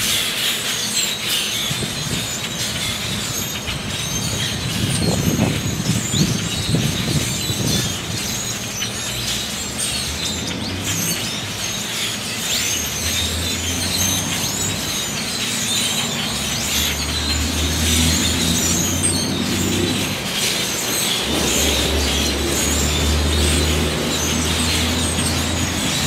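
A large flock of small birds chattering and chirping loudly in a dense, overlapping din. A low steady hum comes in about halfway through and grows stronger toward the end.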